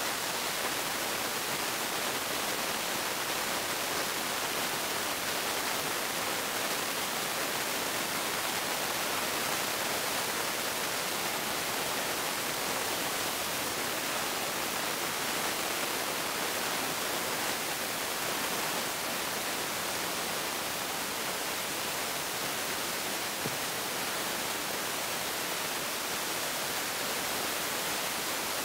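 A steady, even hiss with no rhythm or chuffing.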